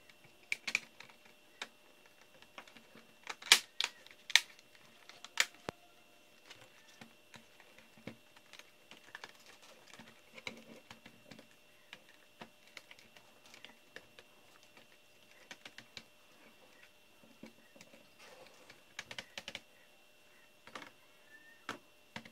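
Plastic top-case frame of a laptop being pressed down onto its base, its clips snapping into place: a scatter of sharp clicks and taps, the loudest three in quick succession between about three and a half and five and a half seconds in, and a quick run of clicks near the end.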